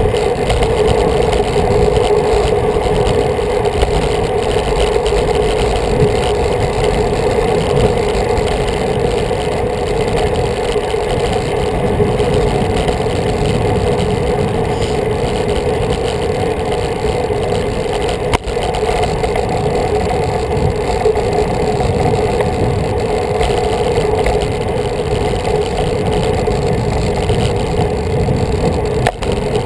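Steady wind rush and road rumble while riding a road bike along a concrete path, with wind on the microphone and a constant droning hum underneath. The level dips briefly twice.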